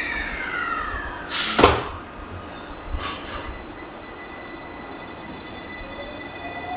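Electric commuter train at a station platform: a short, loud burst of noise about a second and a half in, then near the end a rising whine as the train starts to move off.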